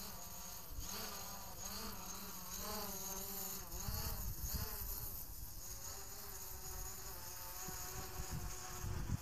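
DJI Mavic Pro quadcopter's propellers whining as it hovers and manoeuvres overhead. The pitch rises and falls as the motors speed up and slow down. A low rumble comes in about four seconds in and again near the end.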